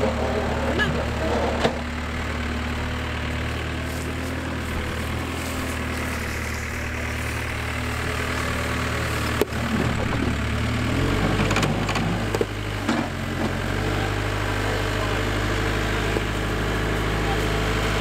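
Case backhoe loader's diesel engine running steadily, its note shifting about eleven seconds in, with a few short knocks.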